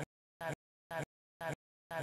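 The same brief blip repeats about twice a second, with dead silence between each one: a stuttering, broken audio track rather than any real sound in the scene.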